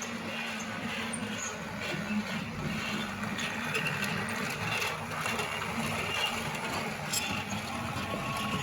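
Lego Duplo toy train running on its plastic track: a steady small-motor whir with scattered light clicks.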